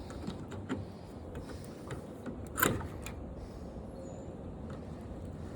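Wires and small parts being handled and pulled loose inside an old washing machine: scattered light clicks and rubbing, with one louder click about two and a half seconds in.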